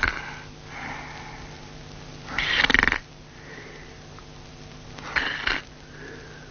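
Person snoring in their sleep: loud snores about every two and a half seconds, each followed by a softer breath out.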